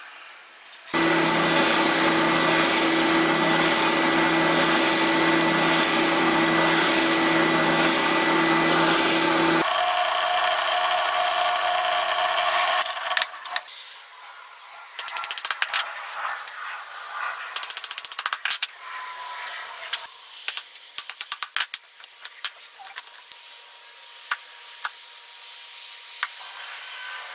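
An electric drill runs steadily for about nine seconds, shifts to a higher tone and winds down. Then a chisel is struck with a mallet in groups of quick taps, chopping a square mortise out of a wooden block.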